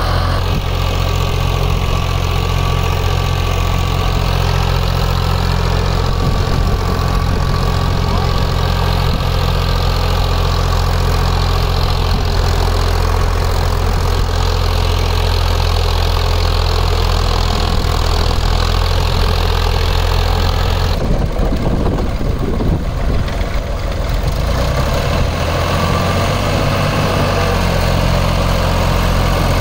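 Fiat 480 tractor's three-cylinder diesel engine running steadily under load while driving a 66-cutter rotavator through dry soil. About 21 seconds in, the sound briefly thins and the engine note shifts.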